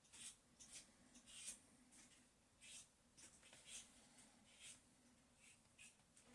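Near silence, with faint, irregular short scratching sounds a few times a second over a faint steady low hum.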